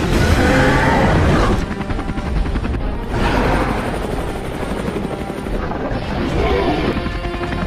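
Film soundtrack: music under heavy, low rumbling sound effects, swelling in loudness at the start and again about three seconds in.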